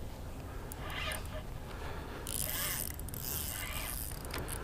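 Spinning reel whirring and clicking while a hooked fish pulls hard on the line.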